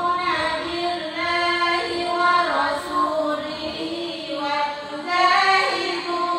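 Women's voices chanting Quran verses in unison in a melodic recitation, with long held notes that glide between pitches.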